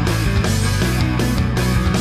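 Loud rock music with guitars and a driving beat.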